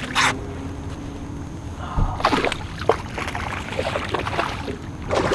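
Water splashing and sloshing as a hooked snook thrashes at the surface beside the boat, with a sharp thump about two seconds in followed by a run of irregular splashes.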